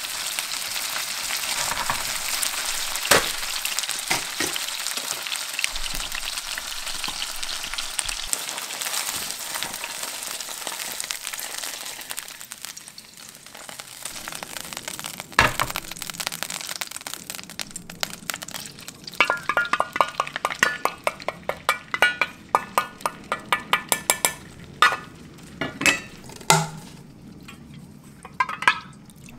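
Chicken pieces frying and sizzling in oil in a pan, stirred with wooden chopsticks; the sizzle fades out after about twelve seconds. Then a sharp clink and a quick run of light metallic clinks and clicks as the cooked pieces are set on a wire rack in a steel tray.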